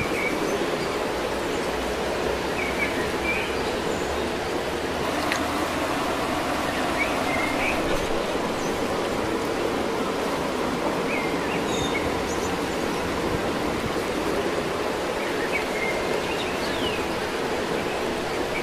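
Steady rushing outdoor background noise, with a few short bird chirps scattered through it.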